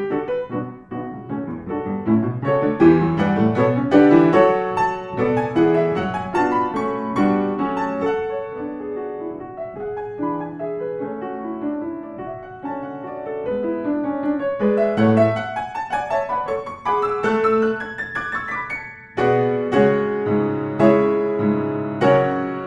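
Solo piano background music, notes and chords played one after another. There is a brief break about three-quarters of the way through, and then fuller, lower chords come in.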